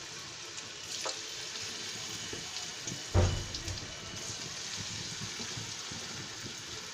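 Vegetable pakoras deep-frying in a pan of hot oil, sizzling steadily. About three seconds in, a loud thump and a burst of sizzle as another lump of batter goes into the oil.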